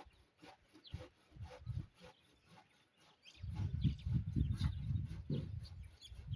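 Livestock sounds close by: low rumbling noises and scattered clicks and knocks, denser and louder in the second half.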